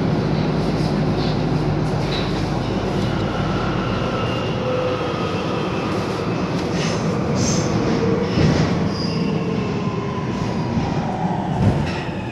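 Nuremberg U-Bahn DT3 metro car running in the tunnel, heard from inside: a steady rumble with a motor whine that slowly falls in pitch from about four seconds in as the train slows. A few brief high wheel squeals and a couple of knocks come a little past the middle.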